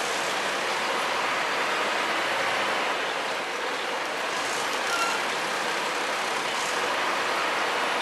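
Double-decker bus running: a steady, even mix of engine and road noise with no change in pitch or level.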